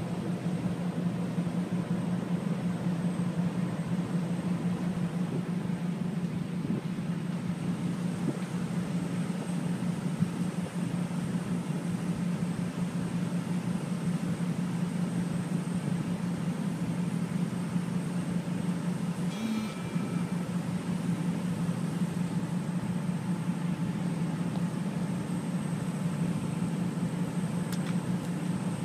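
Vehicle engine idling, a steady low hum.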